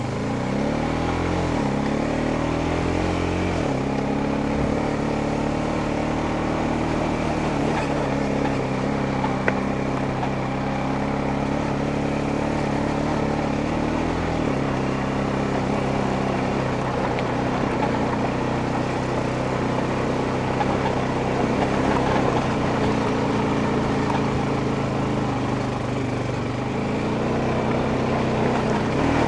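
Honda Rancher ATV's single-cylinder four-stroke engine running under way. Its pitch rises twice in the first few seconds as it gets moving, then holds steady, with a brief change in pitch about halfway through and again near the end.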